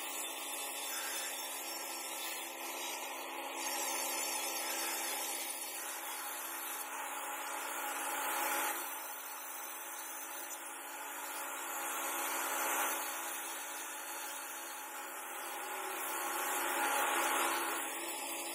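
Handheld angle grinder with a cutting disc cutting out the sink opening in a granite vanity top: a steady motor hum under a gritty grinding noise that swells and eases as the disc is worked along the cut.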